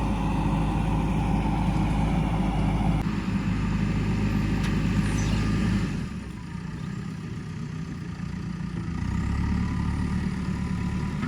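The diesel engine of a JCB 3DX Super backhoe loader runs steadily at working revs. Its note shifts about three seconds in, then falls back to a quieter, lower-revving run about six seconds in, and picks up slightly near the end.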